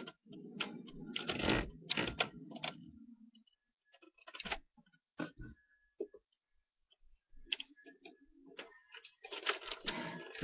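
Handling noise of a computer being moved and repositioned: rustling and bumps for the first few seconds, then scattered light clicks and knocks, with more rustling near the end.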